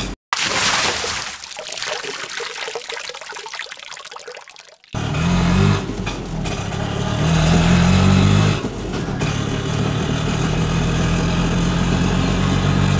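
Water splashing as a toy auto rickshaw drops into a tub, trickling away over a few seconds. About five seconds in, a small engine sound starts running steadily, laid over the toy since it has no motor, rising in pitch for about a second midway before settling back.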